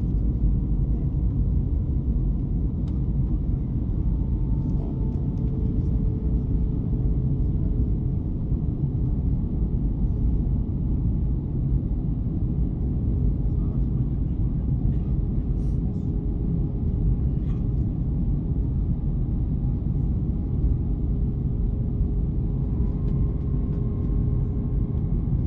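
Airliner cabin noise inside an Airbus A321 descending on approach: a steady low rumble of engines and airflow. A faint steady hum sits on top, shifting slightly in pitch about five seconds in and again near the end.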